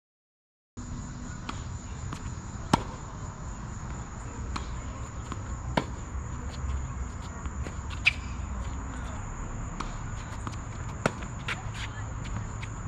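Tennis ball struck by rackets in a rally: four sharp pops about every three seconds, the first the loudest. Under them runs a steady high insect drone. The sound cuts in about a second in, after near silence.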